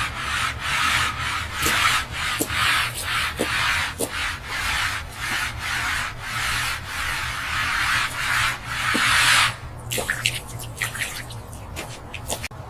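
Rhythmic abrasive rubbing strokes on a hard surface, about two a second. About nine and a half seconds in they give way to lighter, scattered scrapes and ticks.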